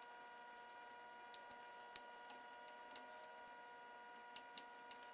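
Near silence: room tone with a faint steady whine and a few scattered faint clicks, three slightly louder ones near the end.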